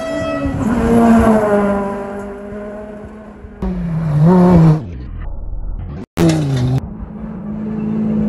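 Rally car engines at full throttle on gravel stages, in several short spliced passes: the engine notes fall away as cars go by, and rise and dip with the throttle and gear changes. Near the end a Subaru Impreza rally car approaches, its engine holding a steady note.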